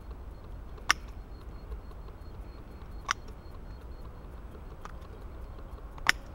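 Small garden shears cutting a garlic clove: four sharp clicks of the blades closing, one or two seconds apart, the third one faint.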